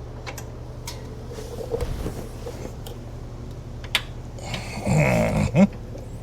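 A few light clicks as suspension parts and bolts are handled, then a person's strained grunt lasting about a second, some five seconds in, over a steady low hum.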